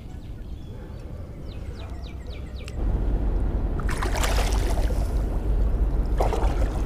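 A few faint bird chirps, then from about three seconds in a loud low rumble of the microphone being handled and rubbed against clothing, with scraping bursts twice.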